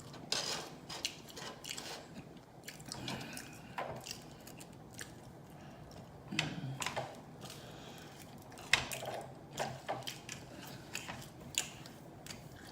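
Close-up eating sounds: chewing with wet lip smacks and irregular clicking mouth noises.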